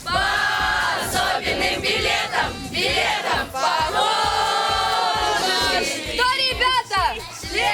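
A group of voices singing together in chorus, with some wavering shouts near the end.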